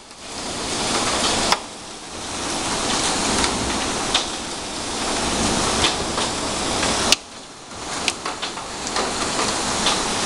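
Heavy storm rain and wind pouring down, with hailstones striking hard surfaces as sharp clicks and knocks every second or so. The rush of noise drops suddenly twice, each time just after a loud knock, then builds back up.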